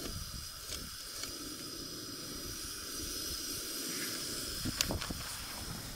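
Backpacking canister stove burner hissing steadily as it heats a pot of water, with a few light clicks and knocks.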